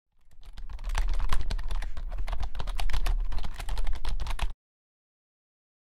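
Typing sound effect: rapid, irregular computer-keyboard key clicks that fade in and then cut off abruptly about three quarters of the way through, followed by dead silence.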